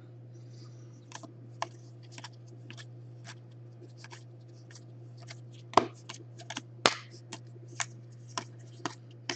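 Panini Contenders football trading cards being flipped through and sorted by hand: irregular light clicks and snaps of card edges, two louder ones about six and seven seconds in. A steady low hum lies underneath.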